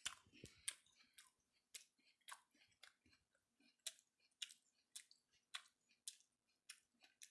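Faint crunching of a person chewing a mouthful of crisp Gala apple, short crunches about twice a second.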